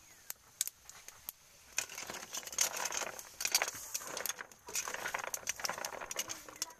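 Wood fire crackling with scattered sharp pops under a pan of land snails. From about two seconds in, the snail shells scrape and rattle in the pan as they are stirred.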